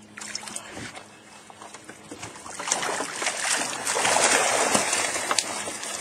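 Water splashing and streaming off a hoop net as it is hauled out of the river over the side of a boat. It is quieter at first and swells about two and a half seconds in into a dense rush of splashing and dripping.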